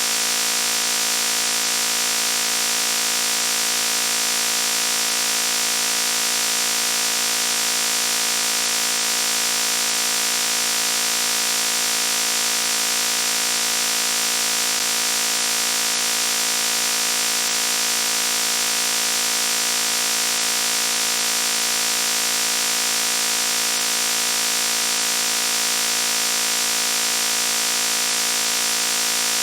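Loud buzzing noise: a harsh, high-edged buzz held perfectly steady, with no change in pitch or level.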